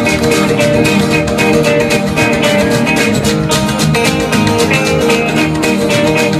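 Live band playing an instrumental passage: guitar, with a washboard scraped in a fast, even rhythm.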